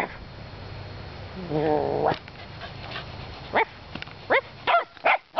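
Shetland sheepdog barking in short, high yips that fall in pitch, coming quicker toward the end, after a brief low growl about a second and a half in.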